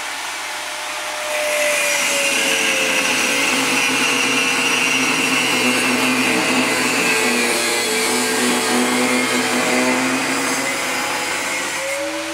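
Angle grinder cutting into a steel mounting bracket. The grinder runs free at first; about a second in, the disc bites into the steel, the cutting noise comes in louder and the motor's whine drops under the load. Near the end the whine rises again as the disc eases off the cut.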